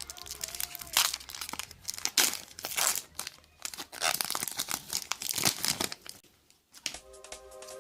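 Foil wrapper of a Pokémon booster pack crinkling and being torn open, a dense run of rustles and rips. The crackling stops about six seconds in, and music starts near the end.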